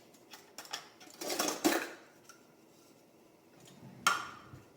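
Kitchenware clinking and knocking while a boiled drink is served: a few light clicks, a brief scraping rush with a knock about a second and a half in, and a sharp clink about four seconds in.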